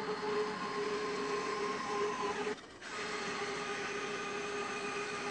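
A 20-inch wood-cutting bandsaw, slowed right down and fitted with a metal-cutting blade, cutting through steel: a steady mechanical hum with a couple of steady tones, breaking off for a moment about two and a half seconds in and then running on.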